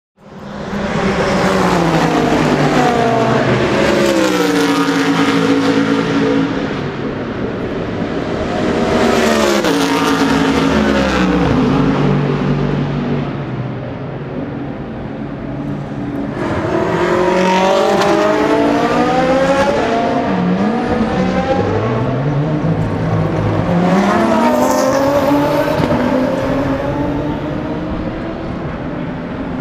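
GT3 race car engines accelerating hard out of the pit lane, several cars one after another. Each engine's pitch climbs and drops back at every upshift.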